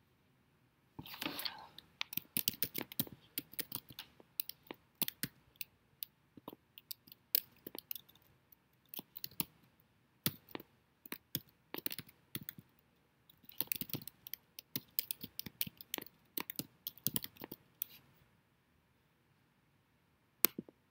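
Typing on a computer keyboard: irregular bursts of key clicks. They stop a couple of seconds before the end, and a single click follows near the end.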